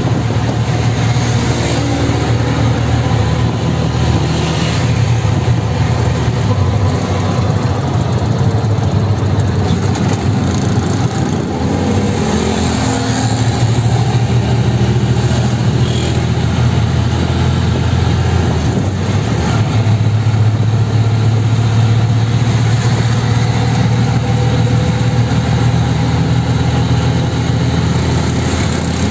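Auto-rickshaw engine running steadily as it drives along, heard from inside the open passenger cab, with a constant hum and road and wind noise over it.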